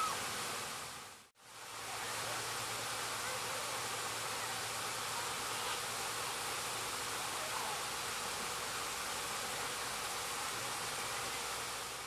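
Steady, even background hiss of outdoor ambience with no clear calls. It drops out briefly about a second in, then carries on unchanged.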